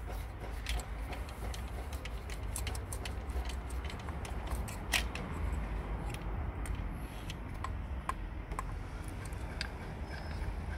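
Irregular light metallic clicks and taps of hand tools working at the ignition coil's 10 mm screws, with one sharper click about five seconds in, over a steady low rumble.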